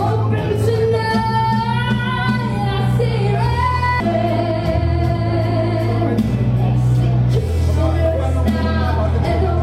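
A woman sings a pop cover live into a handheld microphone over instrumental accompaniment with a steady, sustained bass line.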